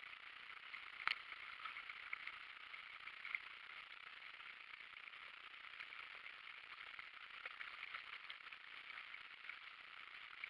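Faint, steady rush of water from a river weir, with small splashes and one sharp click about a second in.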